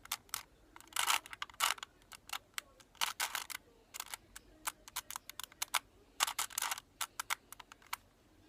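Plastic Rubik's Cube being twisted by hand: quick clicking and rattling as the layers turn, coming in irregular bursts of several clicks with short pauses between.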